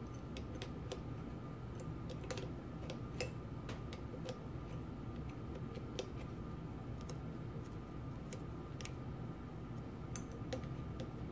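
Light, irregular metallic clicks and ticks of a screwdriver and small open-end wrench against the steel gib adjusting screw and lock nut of a Linotype knife block as the lock nut is tightened, over a steady low hum.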